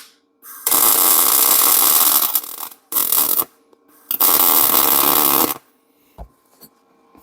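MIG welder arc crackling in three bursts, the first about two seconds long, then a short one and one of about a second and a half, as weld is laid onto a broken steel exhaust stud in an aluminum cylinder head. A faint knock follows near the end.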